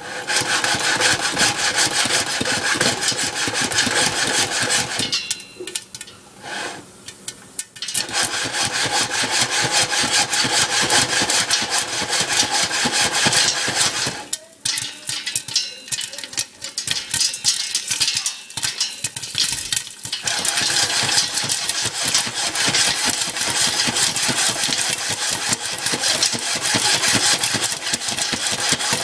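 Lidded metal pot of stovetop popcorn being shaken back and forth over the burner, a loud rasping scrape of metal on the grate with the kernels and oil inside. It goes in long spells, with a pause about five seconds in and another about halfway through.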